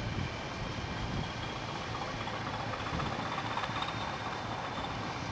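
Class 20 diesel locomotive's engine running as it moves off, sending up exhaust, a little louder about halfway through.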